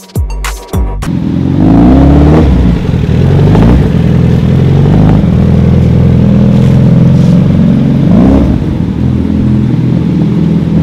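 Suzuki Hayabusa's inline-four engine running as the bike rides in at low speed. The revs rise about a second in and again near the end.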